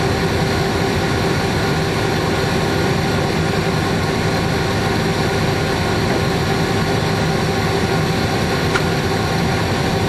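Diesel-electric locomotive G514 idling at a standstill, heard from inside its cab: a steady engine drone with a constant hum running through it.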